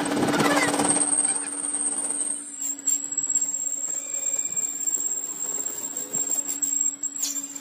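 Workshop machinery running with a steady low hum and a thin high whine, with a falling screech in the first second.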